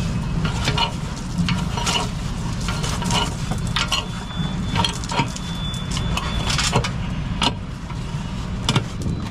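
Log-truck load chains rattling and clinking as they are handled, with a string of sharp metallic knocks, over a truck engine running steadily.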